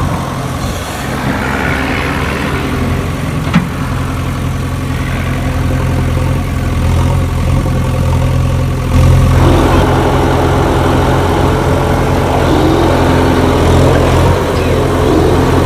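A steady engine idling sound, with a sharp click about three and a half seconds in and growing louder and fuller about nine seconds in.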